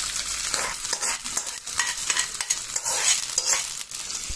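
Mustard-seed tempering in hot coconut oil sizzling as it is poured onto beetroot pachadi, with a metal spoon scraping irregularly against the steel pan to get it all out and stirring it in.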